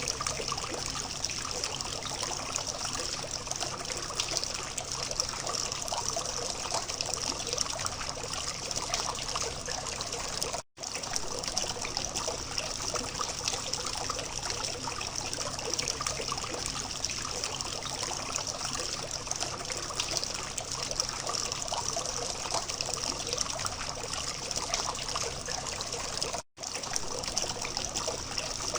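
Water from a small fountain trickling and splashing steadily. The sound cuts out for an instant twice, about a third of the way in and near the end.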